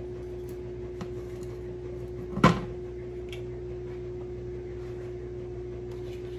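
A single sharp knock from kitchenware being handled at the stove, about two and a half seconds in, with a faint click a second or so before it, over a steady hum.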